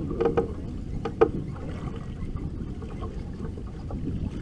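Steady low rumble of water slapping against the hull of a boat drifting on choppy water, with wind noise, and a few short knocks in the first second and a half.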